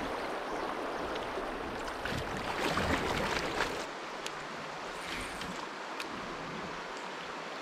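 Creek water running over a shallow riffle around a kayak, louder for the first four seconds and then settling to a softer flow as the boat moves into calmer water, with a few brief ticks.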